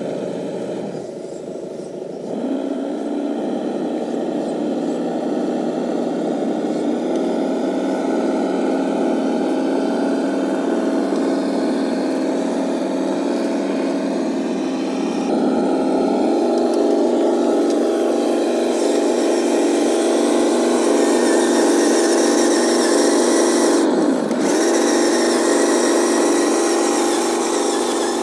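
Radio-controlled truck's electric drive motor and gearbox whining steadily as it hauls a loaded lowboy trailer, the pitch stepping up about two seconds in and again about halfway through.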